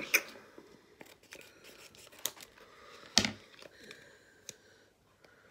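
Scissors snipping open a small face-mask sachet, with the packet crinkling and rustling as it is handled. A few sharp snips, one right at the start and the loudest about three seconds in.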